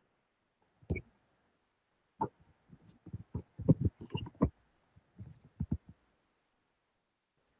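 A series of irregular clicks and knocks, a few at first, then a dense cluster a couple of seconds in, and a few more near the end.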